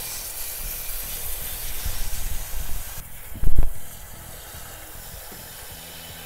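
Garden hose spray nozzle hissing as water rinses dirt out of a rain gutter. The spray cuts off about three seconds in, and a brief low thump follows.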